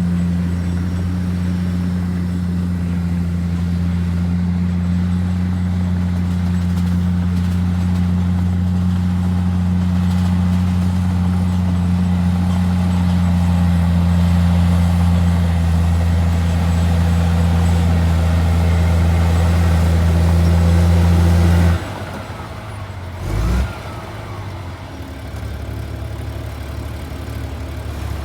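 Heavy diesel earthmoving engine running at a steady, loud drone. It drops away suddenly about three-quarters of the way through, followed by a short low thump and a quieter rumble.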